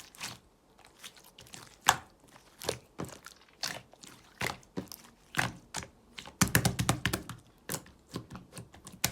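Slime being squeezed and pressed by hand, giving irregular wet clicks and pops of trapped air, with a quick run of crackling about two-thirds of the way in.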